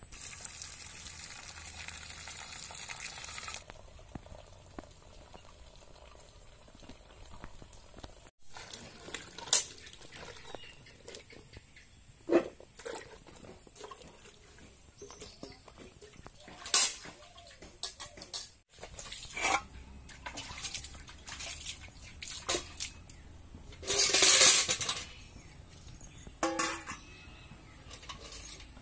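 Starch water from a pot of boiled rice pouring out in a steady stream that stops a few seconds in. Then scattered clinks and knocks of steel cookware, with a louder rush of noise about a second long near the end.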